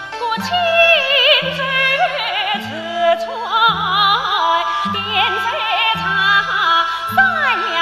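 A woman singing a Yue opera aria over a stage orchestra, her voice wavering with vibrato above a bass line that pulses about once a second.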